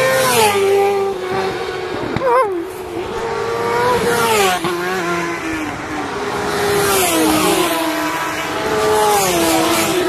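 Road-racing motorcycles passing at speed one after another, engines at high revs. The engine pitch falls sharply several times as each bike goes by.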